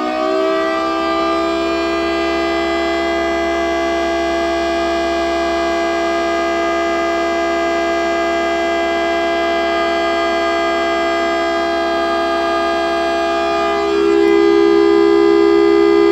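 3D-printed model of a Federal Signal Thunderbolt 1000T siren, its rotor spun by a 775 DC motor without a vacuum air supply, sounding the alert signal: a steady, multi-tone siren wail held at full speed. About 14 seconds in, the lower tones step up louder.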